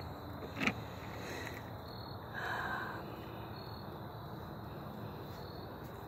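Quiet outdoor background: a steady low hiss with a faint, thin high steady tone, a short click under a second in, and a brief soft noise between two and three seconds.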